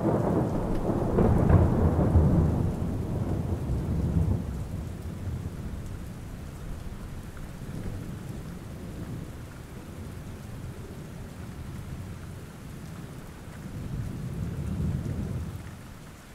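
Thunder rumbling over steady rain: a long rumble starts at once and fades over several seconds, then a softer rumble swells and dies away near the end.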